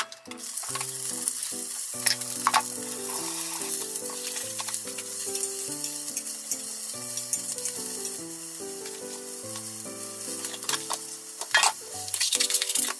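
Green pepper pieces sizzling as they fry in a small rectangular tamagoyaki pan, stirred with chopsticks until softened. A few sharp knocks near the end.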